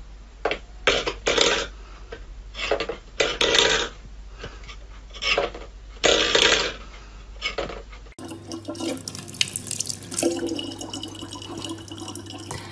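A steel bowl scraped and knocked in a dozen or so short, irregular strokes across a wooden floor as a cat paws at it. About eight seconds in it cuts suddenly to a faucet running a stream of water into a plastic water bottle.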